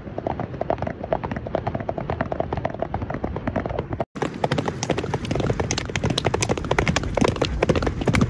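Hoofbeats of a horse galloping on sand, a rapid stream of dull thuds. It breaks off for an instant about four seconds in, then another horse's hoofbeats on sand carry on.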